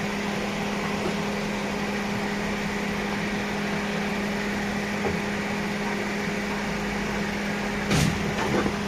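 A steady mechanical hum with an even hiss, and a brief knock about eight seconds in, with a smaller one just after.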